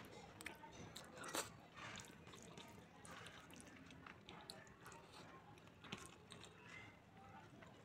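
Faint eating sounds: fingers squishing and mixing rice with palak paneer gravy on a plate, with many small clicks and chewing. A sharper click comes about a second and a half in.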